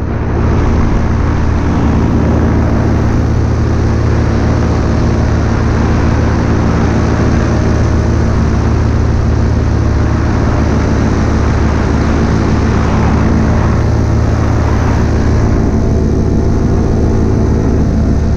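Paramotor engine and propeller running steadily in flight: a constant low drone that holds the same pitch and level throughout.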